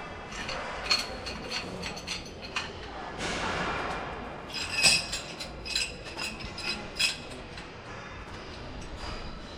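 Light metallic clinks and taps, hard objects knocking together with a short ring, loudest about five seconds in, and a brief rushing hiss about three seconds in.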